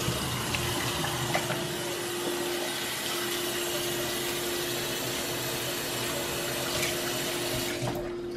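Kitchen faucet running in a steady stream into a stainless steel sink while hands are washed under it; the water is shut off shortly before the end.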